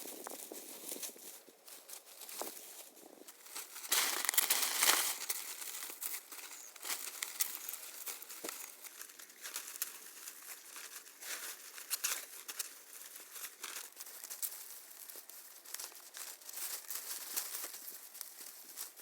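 Dry material rustling and crackling, with many small sharp snaps and a louder burst of rustling about four seconds in.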